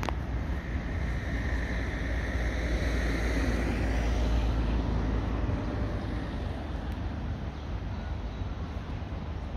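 Road traffic: a vehicle passing close by, swelling to its loudest about four seconds in and then fading, over a steady low rumble.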